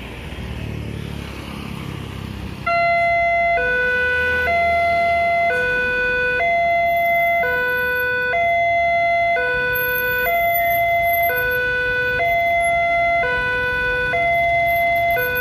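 Indonesian railway level-crossing warning alarm starting about three seconds in, after a low rumble, and sounding a high-low two-tone that switches pitch about once a second. It is the warning that a train is approaching, and it sounds while the crossing barriers come down.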